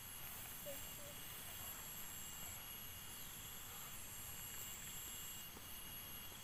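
Faint field ambience of insects, likely crickets, giving a steady high-pitched chirring over a low hiss.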